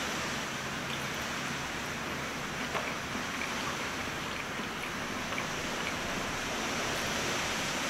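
Steady rain, an even hiss without a break.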